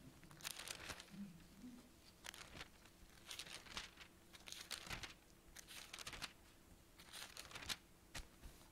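Faint rustling of thin Bible pages being turned: a dozen or so short, crisp rustles.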